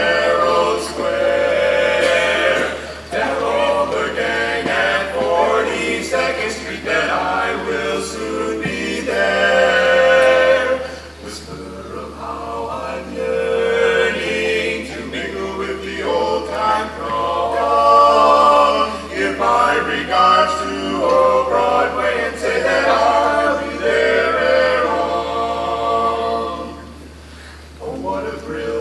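Barbershop chorus singing a cappella in close harmony, in phrases with a short dip a little before the middle and another near the end.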